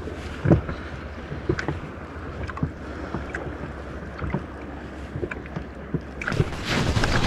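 Small waves lapping and slapping against an inflatable boat's rubber hull, with scattered light knocks and a low wind rumble on the microphone. About six seconds in, the sound gets louder and brighter.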